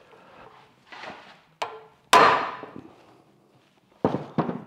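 Ball-peen hammer striking a hand impact driver set in a screw of the crankshaft's trigger wheel, to break the screw loose so the wheel can come off. There are several sharp metallic blows, the loudest about two seconds in with a ringing tail, then two quick blows near the end.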